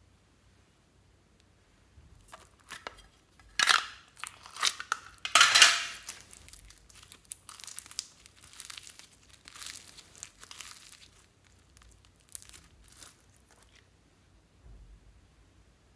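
A plastic slime tub being opened with a few sharp, crackly snaps, then purple foam-bead slime (floam) crackling softly as it is pulled out, stretched and dropped into a glass dish of slime.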